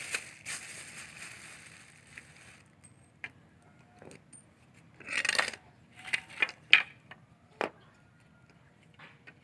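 Nails being hammered into wooden poles: about seven sharp, irregular knocks with a metallic clink, the loudest a little past the middle. A soft hiss comes before the knocks in the first two seconds.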